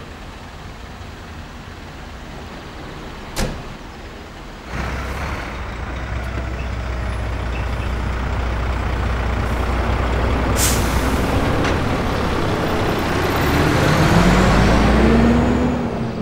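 Volvo refuse truck's diesel engine: after a single sharp knock, a deep engine rumble starts suddenly about five seconds in and grows louder as the truck drives up and passes, with a short air-brake hiss partway through. Its engine pitch glides up and down as it passes and then falls away as it drives off.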